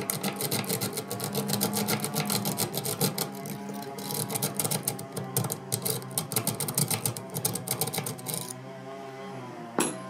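Rake pick scrubbed rapidly in and out of a keysafe's wafer lock under tension: a fast, uneven run of small metallic clicks as the wafers are raked to try for a false set. The raking stops about eight and a half seconds in, and one sharper click follows near the end.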